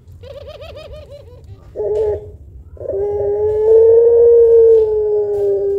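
Puter pelung dove cooing: a quick wavering trill, a short note, then one long deep coo held for several seconds that sinks slowly in pitch.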